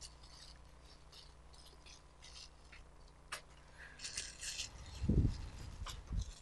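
Clear disposable plastic food-handling gloves crinkling and rustling in a string of short scratchy bursts as gloved hands work shredded potatoes and pull at the gloves. Two dull thumps come near the end, the first the loudest.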